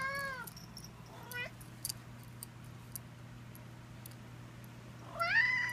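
A cat meowing three times: a drawn-out meow at the start, a short one about a second and a half in, and a rising meow near the end, over a low steady hum.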